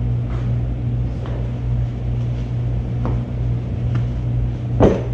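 A steady low machine hum, with a few faint clicks and one sharper knock near the end.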